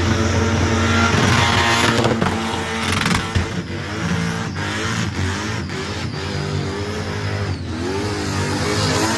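Supercharged LS V8 revving hard, its pitch rising and falling, with sharp bangs from the exhaust several times in between: the blown engine firing shots.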